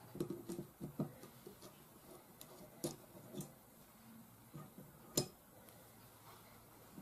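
Light clicks and taps of a hex key working a small screw in an air rifle's action and of small metal tools and parts being handled: a cluster of small clicks in the first second, a few more scattered through, and one sharper click about five seconds in.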